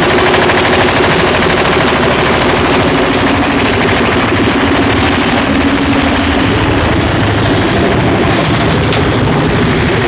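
Kirloskar 10 HP water-cooled single-cylinder diesel engine on a lift concrete mixer, running steadily with a fast, even knock shortly after being hand-crank started.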